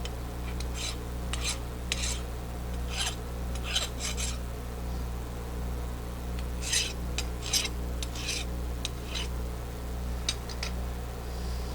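Aluminium chips being cleaned off a milling-machine vise and workpiece: a series of short scraping and clinking strokes, metal on metal, over a steady low hum.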